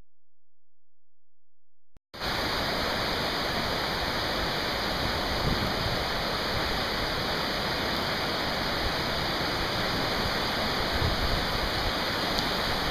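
Steady rushing of a swollen mountain river in flood, fast brown water churning past the bank. It starts about two seconds in, after a quiet opening.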